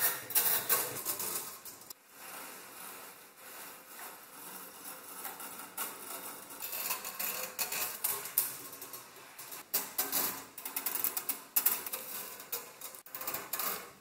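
The coiled resistance-wire heating elements and thin steel ring frame of a vintage space heater rattling and clinking as they are handled: a dense run of small metallic clicks and ticks, quieter for a few seconds after the start and busier again in the second half.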